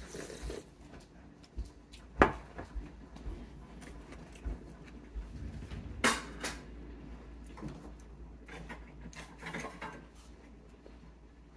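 Scattered knocks and clicks of kitchen activity, with two sharp ones standing out about two and six seconds in, over a low steady hum.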